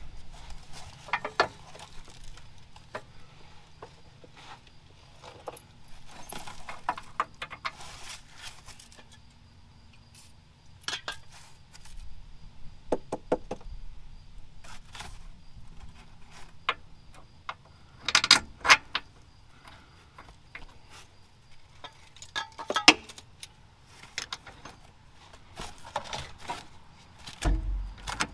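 Metal tools and bolts clinking and rattling as they are handled, in scattered clusters of sharp clicks and knocks.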